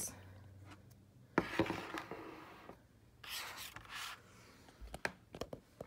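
Hands handling a paper picture book and a plastic dinosaur figure: two brief rustling scrapes of paper, about a second and a half and three and a half seconds in, then a few light taps near the end.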